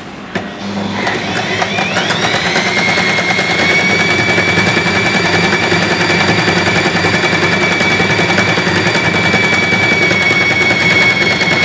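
Usha Janome Excella electric sewing machine stitching through cloth. After a click, the motor speeds up with a rising whine over about a second, then runs steadily at speed with a fast even needle rhythm.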